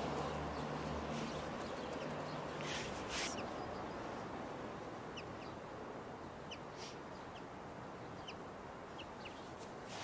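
Outdoor city-park ambience: a steady hiss of street traffic with a low hum over the first two seconds or so, two short rustling knocks about three seconds in, and brief high chirps of small birds scattered through the second half.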